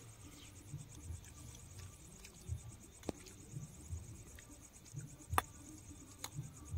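Crickets chirping steadily, a fast pulsing high trill, with a few sharp clicks (the loudest about five seconds in) and faint low thumps.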